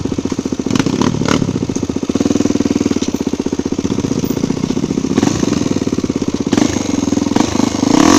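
Single-cylinder four-stroke trail motorcycle engine running at low revs with an even, rapid firing beat, swelling briefly a couple of times.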